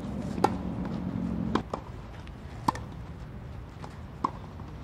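Tennis ball struck by a racket and bouncing on a clay court: about five sharp knocks, one every second or so. A low steady hum sounds under the first hits and stops about one and a half seconds in.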